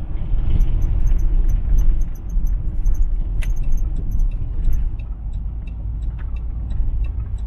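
Car interior while driving in city traffic: a steady low rumble of engine and tyre noise heard from inside the cabin, with a few faint light ticks and one sharper click about three and a half seconds in.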